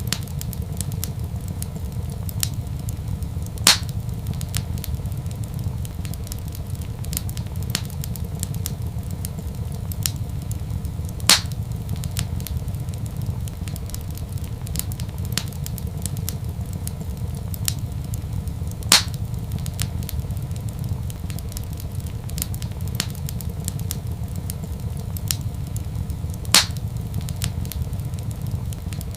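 Wood fire crackling in a fireplace: a steady low rumble under frequent small crackles, with four louder pops spaced evenly about seven and a half seconds apart.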